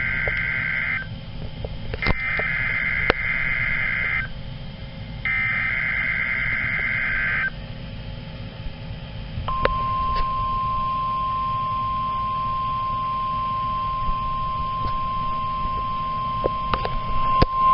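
NOAA Weather Radio alert tones played through a weather radio's speaker: three bursts of SAME digital header data, each about two seconds long, the first already under way. About halfway through, the steady 1050 Hz warning alarm tone of the weekly test begins and gets louder near the end, with a few clicks of static.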